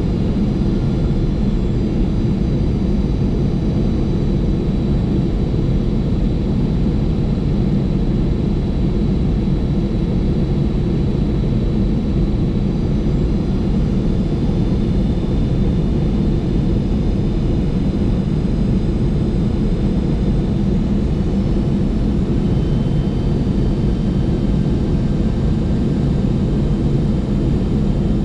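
Steady flight-deck noise inside a Boeing 747-400 freighter: a constant low hum of engines and airflow, with a few faint high whines above it.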